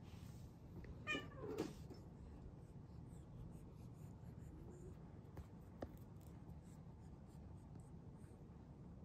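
A cat gives one short call about a second in, falling in pitch. Later come two faint clicks.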